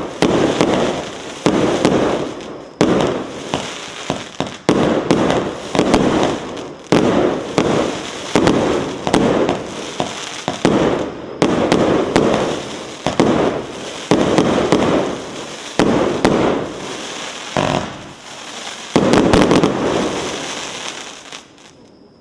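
Consumer fireworks battery ('Сочельник') firing a series of aerial shots: a sharp bang roughly every second, each trailing off in a crackling burst. The last large burst comes near the end and fades away.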